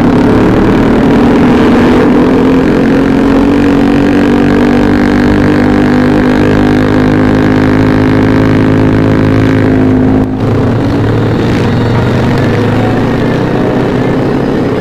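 Motorcycle engine running steadily under way, a stack of even tones holding near one pitch. About ten seconds in there is a brief break in the sound before it carries on at a slightly lower note.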